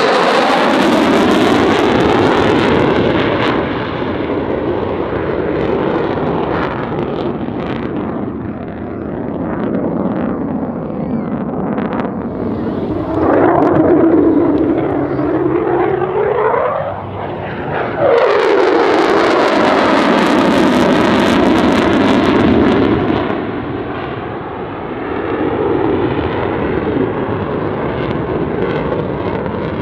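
Jet noise from an F-35A's single Pratt & Whitney F135 afterburning turbofan during demonstration passes, with a sweeping, phasing tone as the jet goes by. It swells loudest near the start, again about 14 seconds in, and from about 18 seconds, where it returns abruptly after a brief dip.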